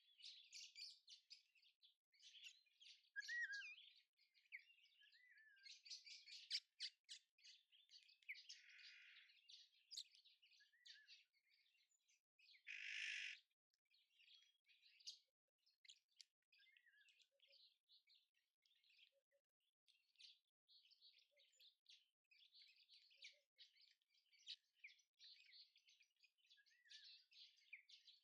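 Faint chorus of several small birds chirping and twittering without a break, with a short harsh rasp about halfway through.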